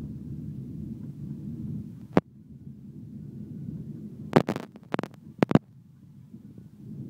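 Steady low rumble inside an airliner cabin during the takeoff roll. Several sharp knocks break through it, the loudest about four and a half and five and a half seconds in.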